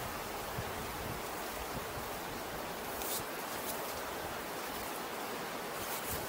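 Steady rushing of whitewater rapids in the Niagara River, with a few brief clicks about three seconds in and again near the end.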